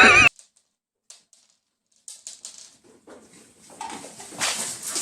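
A loud animal cry cuts off abruptly just after the start. It is followed by faint, scattered clicks and rustling that grow a little louder near the end.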